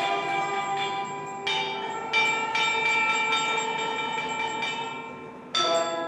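Tuned chime bells struck one note after another in a slow melody, each note ringing on under the next, with a louder group of strikes near the end.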